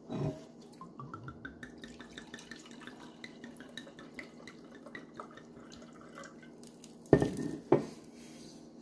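White wine poured from a glass bottle into a glass tumbler, glugging in quick pulses whose pitch climbs steadily as the glass fills. Near the end, two loud knocks as the bottle is set back down on the counter.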